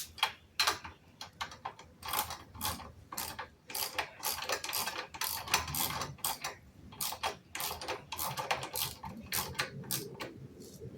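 Ratchet socket wrench clicking in irregular runs of strokes as a bolt is tightened.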